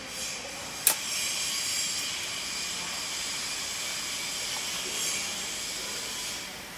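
Steady hiss of background noise, with one sharp click about a second in.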